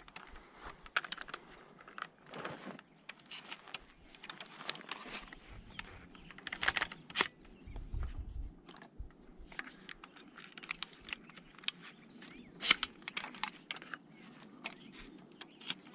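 Scattered small clicks, taps and rattles of objects being handled, with a louder run of clicks about two-thirds of the way through.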